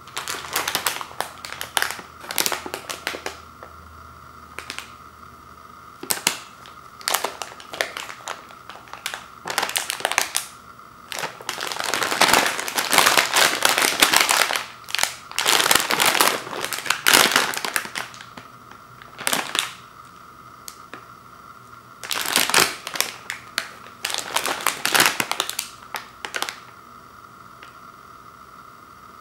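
Plastic snack bag of hard sourdough pretzel pieces crinkling as it is handled, shaken and turned over, with the pieces rattling inside. It comes in bursts with short pauses, and the longest, loudest stretch is in the middle.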